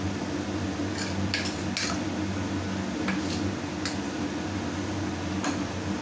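Metal spoon stirring a thick curry in a pressure cooker pot, clinking sharply against the pot's side several times, over a steady low hum.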